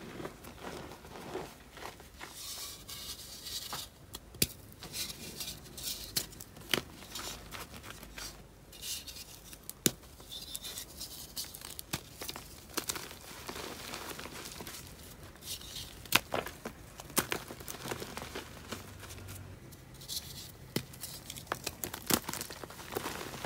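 Dried reformed gym chalk being crushed by hand: a crumbly crunching and powdery crackle, with a sharp snap now and then as pieces break off.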